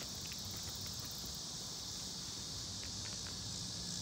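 Steady, high-pitched chorus of insects buzzing in the surrounding trees and shrubs.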